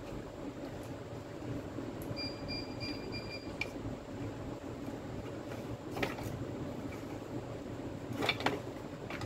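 A few sharp clicks and knocks as a Makita DDF446 driver drill's motor and gearbox assembly is handled and seated into its plastic housing half, one about two-thirds of the way in and a quick cluster near the end, over a steady background hum.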